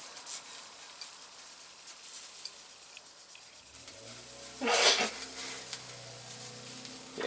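Tomatillos and serrano peppers sizzling as they cook, a steady hiss with scattered crackles. A short, louder burst of noise comes about five seconds in.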